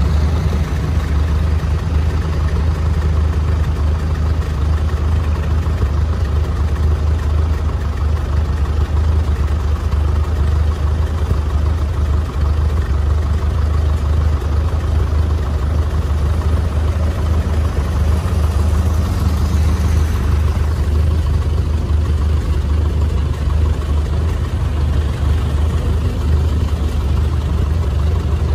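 Antique farm tractor engines running in a steady low drone.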